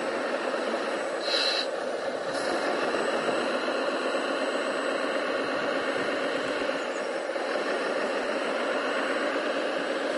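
Radio-controlled scale model trucks driving over a dirt pile: a steady mechanical running sound from their motors and drivetrains, with a brief higher hiss about a second and a half in.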